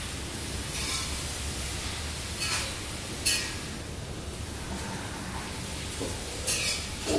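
Steady background hiss, with a few brief, soft, high-pitched rustles spread through it.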